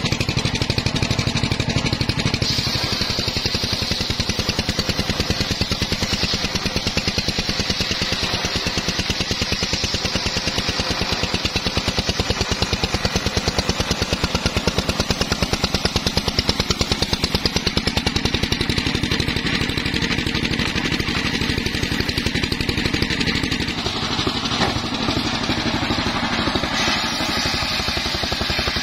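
Homemade engine-driven circular sawmill running steadily, its large blade ripping through a mahogany plank. A higher cutting hiss sets in a couple of seconds in and eases off near the end, over the constant throb of the engine.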